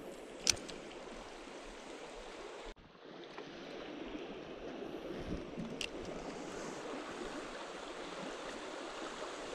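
Creek water flowing steadily, with a sharp click about half a second in and another near six seconds; the sound drops out briefly a little under three seconds in.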